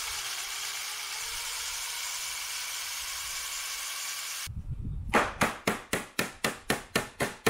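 Cordless drill running steadily under load, drilling out the flared end of a fixing on a car door-handle part, for about four and a half seconds. It stops, and then a hammer starts striking the metal part in rapid, regular taps, about four a second.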